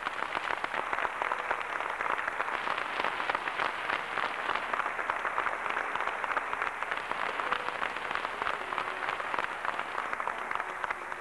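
Audience applause: many people clapping steadily and densely.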